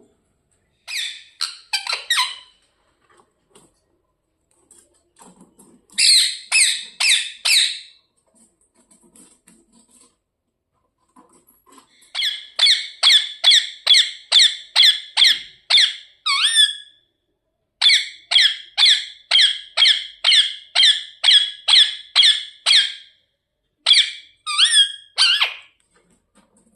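Ringneck parrot chirping: short repeated calls, about two or three a second, in five runs with pauses between; the two longest runs, in the middle and latter part, go on for about five seconds each.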